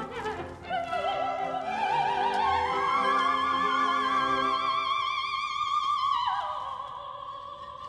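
Operatic soprano singing over background music: a voice with strong vibrato climbs to a long held high note, then drops to a lower note about six seconds in.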